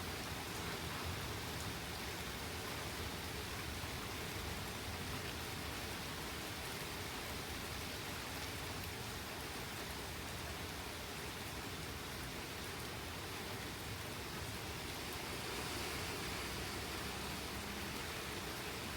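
Steady rain falling in a thunderstorm: an even hiss that swells slightly about sixteen seconds in.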